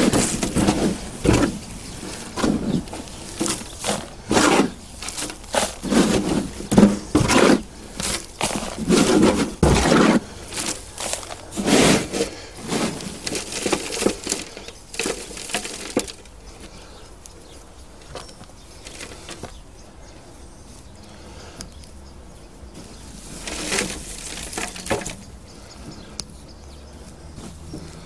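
Hands digging and rummaging through compost in a potato pot: a run of irregular rustling, crunching scrapes, dense for about the first half, then quieter with one more burst later on.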